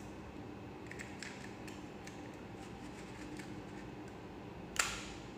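Plastic mechanism of a disposable endoscopic linear cutter stapler being worked by hand after firing: a few light ticks, then one sharp click near the end as the stapler is reset and its jaws released.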